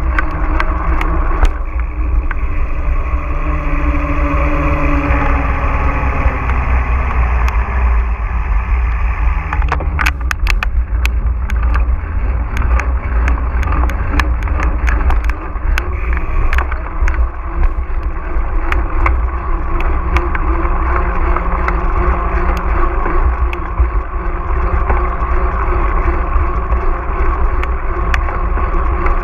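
Mountain bike ridden over rough ground, heard on a GoPro Hero4: a steady low rumble of wind and tyres with frequent sharp clicks and rattles from the bike, thickest about ten seconds in and again around sixteen seconds.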